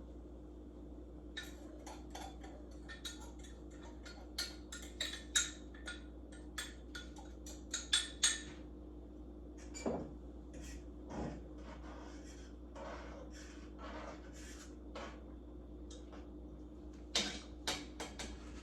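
Kitchen clatter: a utensil clinking and scraping against a pot and dishes in a run of sharp clicks, thickest in the first half and sparser later, over a faint steady hum.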